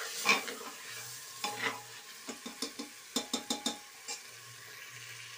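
Mixed vegetables sizzling as they are stir-fried in masala in an aluminium pressure cooker, a spoon scraping and knocking against the pot. A quick run of knocks comes a little past the middle.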